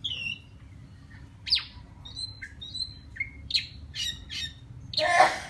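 Oriental magpie-robin singing: a string of short, clear whistles and sharp down-slurred notes, some high and some lower, with a loud, harsh rasping note near the end. It is a male's song to call a female.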